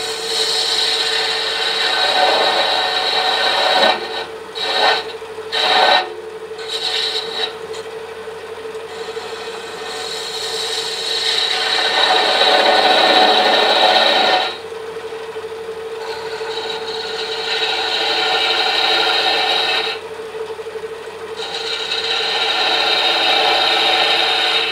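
Wood lathe running with a steady hum while a hand-held turning tool cuts the spinning wooden handle, shaving wood in a run of long passes with a few short quick ones about five seconds in.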